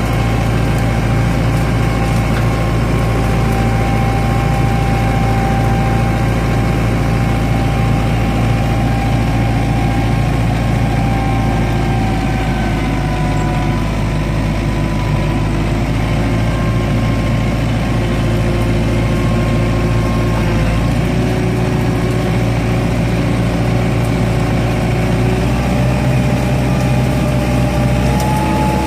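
Kubota compact tractor's diesel engine running steadily under the operator, loud and close. Thin whines over it shift in pitch, dropping about halfway through and rising near the end.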